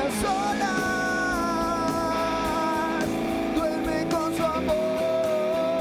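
Live rock band playing an instrumental passage, with a lead guitar line of long held notes that bend in pitch; one note is held steadily near the end.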